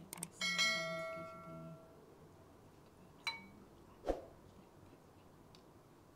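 A metal ladle clinks against ceramic bowls as soup is served: one ringing clink near the start that lingers for about a second and a half, then two shorter knocks about three and four seconds in.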